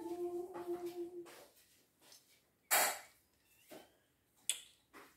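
A child's sung note held for about a second and fading out, then a short loud rustle about three seconds in and a couple of quieter clicks.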